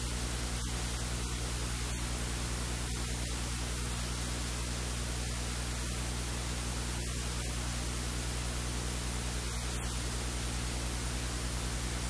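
Steady hiss with a low electrical hum, unchanging throughout.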